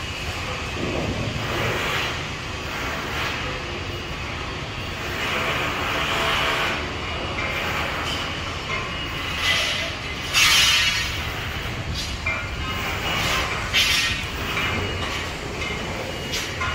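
Construction-site background noise: a steady low rumble with irregular higher-pitched bursts of machinery noise, the loudest about ten seconds in.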